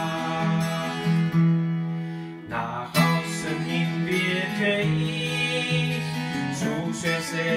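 Acoustic guitar strummed through an instrumental break between sung lines, with long held notes underneath.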